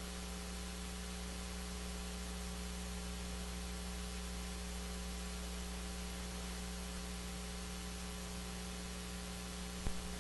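Steady electrical mains hum with a hiss underneath, and a faint click near the end.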